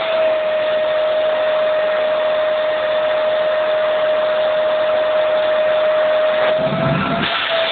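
Vacuum cleaner running with a steady high whine, its nozzle sucking at a sleeping man's lips. Near the end the pitch briefly wavers up and a short low fluttering rumble comes in.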